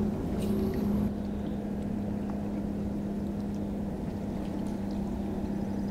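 Steady, even hum of a boat motor, holding one pitch throughout, with a brief light rattle about half a second in.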